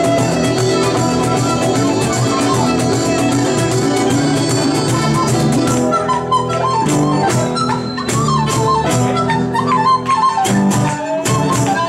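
Live folk band playing a tune on fiddle, flute, guitar and hand drums. About halfway through the texture thins to clear hand-drum strokes under an ornamented flute melody.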